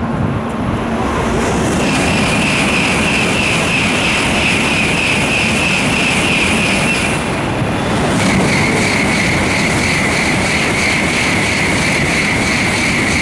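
Tokaido Shinkansen high-speed train moving past along the platform: a loud, steady rushing noise with a high whine over it that drops in pitch about halfway through.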